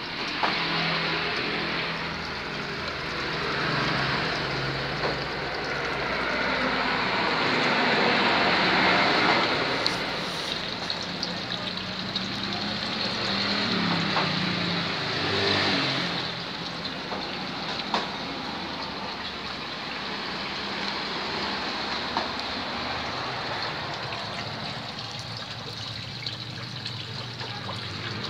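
Water pouring from a PVC pipe and splashing into a pond: a steady rushing splash that swells and eases. A low hum runs underneath.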